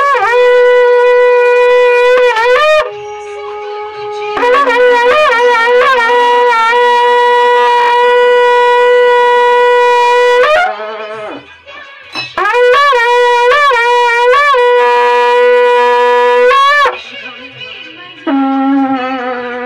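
A narsinga, the long curved copper horn of Himachal, blown in three long blasts. Each blast opens with a wavering, wobbling pitch and then settles into one held note.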